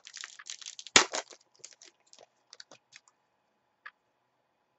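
Foil trading-card pack torn open by hand: a rapid flurry of crinkling crackles with one loud rip about a second in, thinning to a few light crinkles and ticks, with a last small click near the end.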